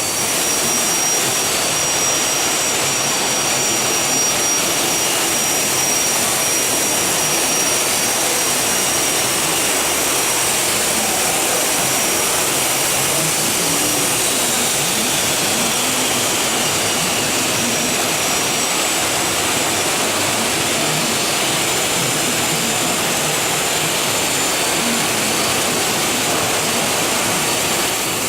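JGZFX4 4000 CNC machining centre for aluminium profiles running, a steady loud rushing noise with a thin high whine from the spindle. A faint falling whine passes through about halfway.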